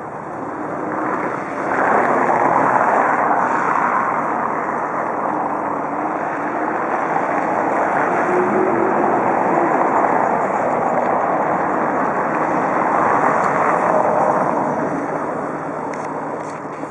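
Motor traffic noise, a broad rush that swells about two seconds in, holds, and eases off near the end.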